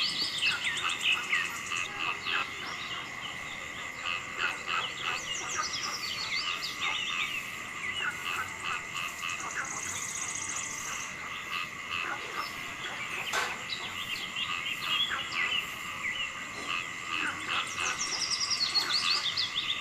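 Outdoor nature ambience: a steady high insect drone under many short frog-like croaks and chirps, with a bird's falling trill twice. One sharp click about two-thirds of the way in.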